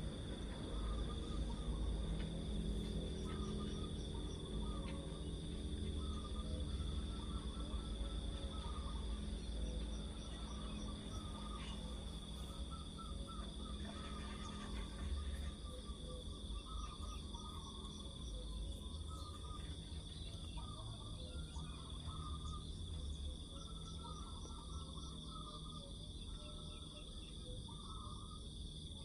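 Insects chirring steadily in unbroken high-pitched tones, with scattered shorter chirps in a lower register, over a constant low rumble.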